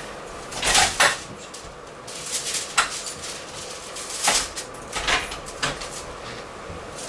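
Rustling and shuffling as a person turns over onto his side on a padded treatment table, in several short bursts with one sharp click a little under three seconds in.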